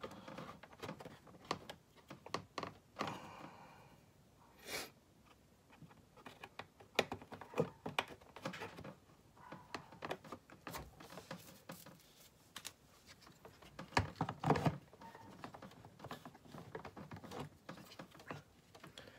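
Hard plastic parts being handled and fitted together: scattered irregular clicks, taps and small knocks as a fog light bracket and lamp housing are pushed into a plastic bumper cover, with louder knocks about five seconds in and again around fifteen seconds.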